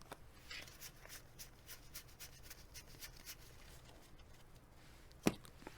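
Baseball cards being flicked one at a time off a hand-held stack: a quick run of soft, papery flicks and slides, with one sharper tap about five seconds in.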